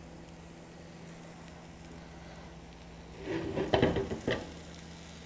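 Chicken breasts sizzling faintly in a hot skillet. A bit past three seconds in comes a short clatter of several quick knocks from the metal kitchen tongs, lasting about a second.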